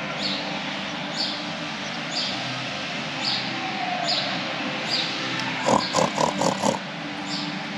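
Farm animal calls: a short high chirp repeats about once a second, and a quick run of about six loud short calls comes about six seconds in.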